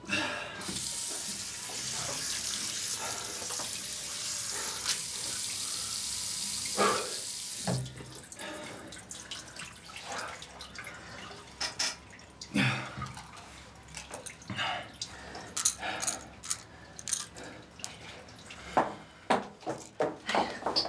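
Bathroom tap running into a marble washbasin with a steady hiss for about seven seconds, then shut off. Scattered short splashes, drips and rustles follow.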